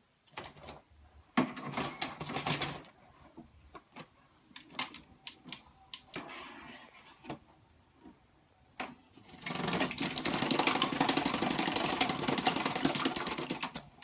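Black-capped lory bathing in its water bowl: scattered splashes and clicks at first, then, about nine seconds in, several seconds of loud, rapid, continuous splashing.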